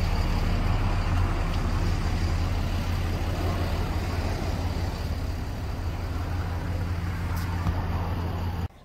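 A steady low mechanical hum with a faint high whine above it, cutting off suddenly near the end.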